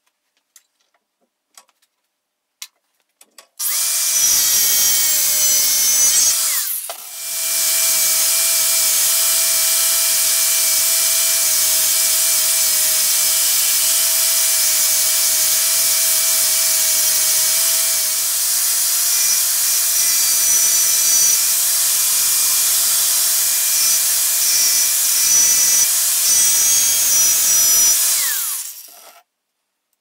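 A few light ticks, then an angle grinder starts up and runs with a steady whine, its disc working metal clamped in a bench vise. It dips briefly about seven seconds in, runs on steadily, and stops near the end.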